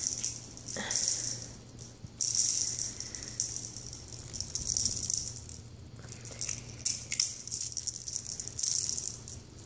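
Small bell on a bungee cat toy jingling and rattling in irregular bursts as a cat bats at and bites the toy.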